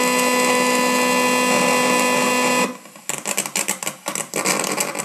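AD8318 RF log-detector output played through a 3.5 W amplifier: a steady electronic buzz made of several fixed tones, the demodulated sound of nearby radio transmissions from the mobile phone in use. About two and a half seconds in the buzz cuts off suddenly and gives way to irregular, rapid crackling and clicking as the transmission pattern changes.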